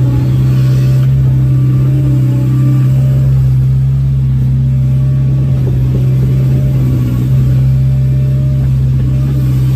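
Caterpillar 320 GC excavator's diesel engine running steadily, heard from the cab, while the bucket digs and lifts wet soil out of a trench.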